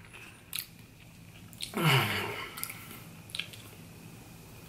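A man's short wordless hum with a falling pitch about two seconds in, the loudest sound, among a few faint clicks and smacks.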